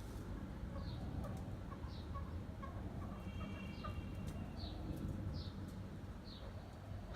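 Chukar partridge calling in a series of short clucks, with thin high chirps about once a second, over a steady low rumble.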